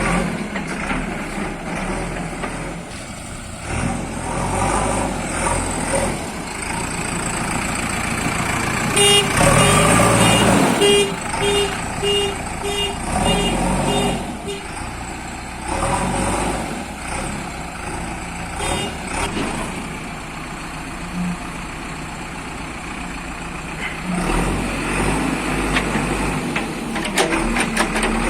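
Heavy machinery engine running, with a run of short, evenly spaced beeps about two a second for several seconds in the middle, like a warning alarm.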